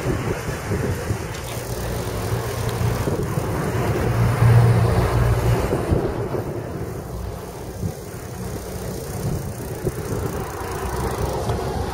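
Wind buffeting the microphone of a camera on a moving bicycle, with road traffic going by on the road alongside. The rumble is loudest about four to five seconds in.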